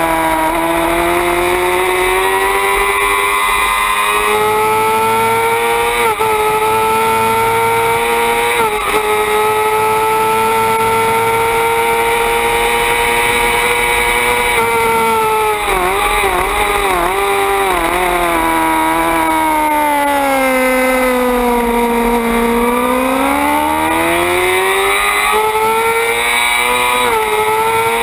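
Suzuki GSX-R 600 inline-four racing engine at high revs, its pitch climbing steadily under hard acceleration. About halfway through the revs jump up and down several times in quick succession as it downshifts, then fall away under braking before climbing again near the end.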